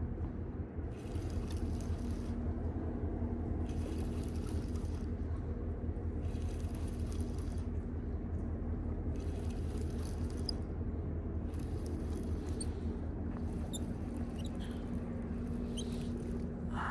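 Steady low outdoor rumble with a faint constant hum and no distinct events.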